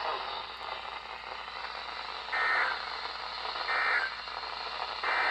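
Three short, buzzy bursts of NOAA Weather Radio SAME digital data, about a second and a half apart, over the receiver's steady static hiss. Bursts this short match the end-of-message code that closes an alert broadcast.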